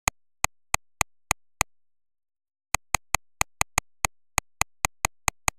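A series of sharp, dry clicks, like a clicking sound effect: six evenly spaced about a third of a second apart, a pause of about a second, then a faster, slightly uneven run of about a dozen.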